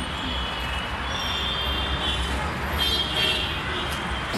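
Steady rumble of road traffic, with vehicle horns tooting about a second in and again about three seconds in.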